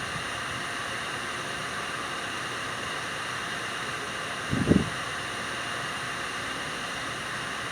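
Jiuru EKV-200 booster pump running steadily, a constant hiss of motor and water flow with a few faint steady tones, broken once by a short low thud about four and a half seconds in.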